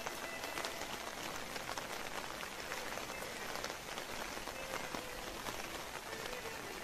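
Steady rain falling on wet paving and outdoor furniture: a dense, even hiss of many small drop ticks.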